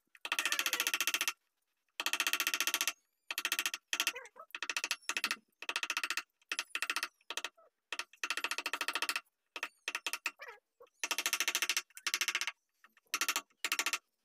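A wooden mallet striking a carving chisel into a wooden panel in fast runs of many taps, each run lasting under a second to about a second, broken by short pauses.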